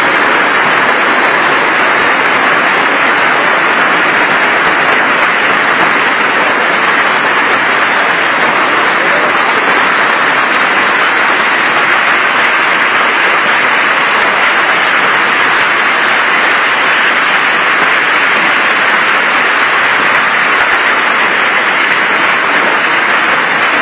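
Hailstorm: hail and heavy rain pelting down, a loud, even noise with no let-up.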